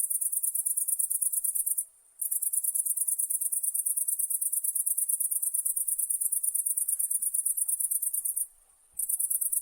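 Night insect trilling, a very high-pitched, rapidly pulsing song that breaks off briefly about two seconds in and again near the end.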